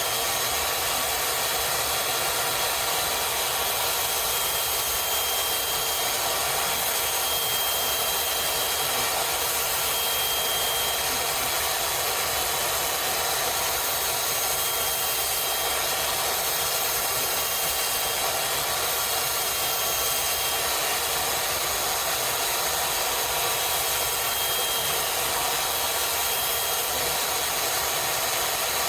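Electric knife sharpener running steadily while a new edge is ground onto a Japanese utility knife.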